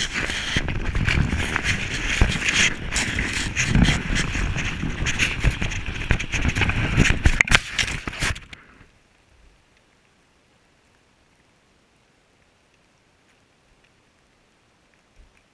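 Rough scraping and crackling of a sled sliding over snow, with snow rubbing against the camera. It stops abruptly about eight and a half seconds in, leaving near silence.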